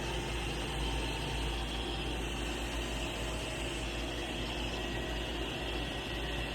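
Roomba robot vacuum running: a steady even noise of its vacuum motor and brushes, with faint steady whining tones over it.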